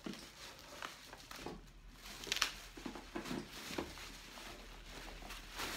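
Bubble wrap rustling and crinkling as it is handled and pulled off a box, in irregular crackles, the sharpest about two and a half seconds in and near the end.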